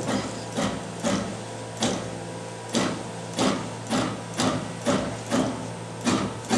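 Gantry of a NeoDen 3 pick-and-place machine making short jog moves as its camera head is stepped toward a fiducial mark: a string of short, sharp mechanical noises, irregularly spaced at about one to two a second, over a steady low machine hum.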